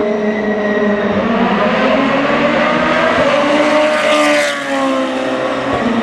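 DTM touring car's two-litre turbocharged four-cylinder engine at speed, one car passing close about four seconds in with its note falling as it goes by, other engine notes running underneath.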